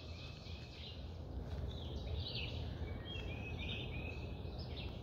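Birds chirping and calling, short whistled notes scattered throughout, over a low steady background hum of outdoor noise.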